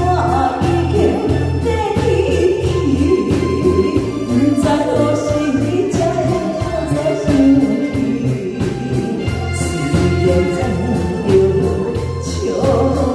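A woman singing a Taiwanese-language song into a microphone over band accompaniment, with a steady bass and drum beat.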